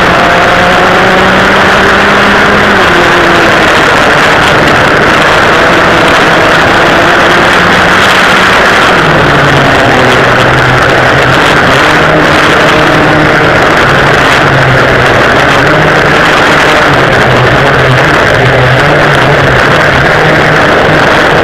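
Dual rear-mounted two-stroke engines of a vintage racing kart running hard at racing speed, heard on board. The engine note climbs, drops about three seconds in and again about nine seconds in, then rises and falls with the throttle through the corners. Heavy wind rush over the microphone runs underneath.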